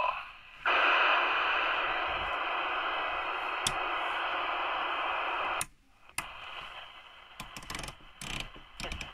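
A 1981 Stalker IX DX CB radio's speaker hisses with loud, even static for about five seconds, then cuts off suddenly. Fainter static follows, broken by several short clicks and crackles as the front-panel controls are turned from channel 29 to channel 37 on USB.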